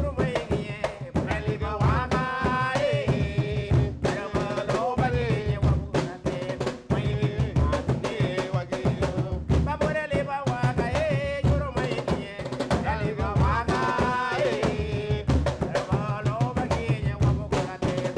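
Garifuna hand drums, the segundo and primera, playing a hungu hungu rhythm with dense, continuous strokes, while a voice sings over them.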